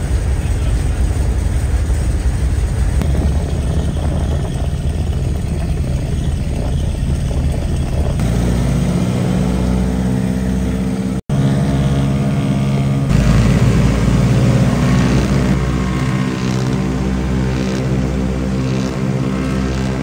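The 1929 Ford Tri-Motor's radial engines running on the ground, heard at first from inside the cabin as a rough rumble. From about 8 seconds in they become a steadier pulsing drone with a clear engine note, briefly cut out about 11 seconds in, and are louder from about 13 seconds in.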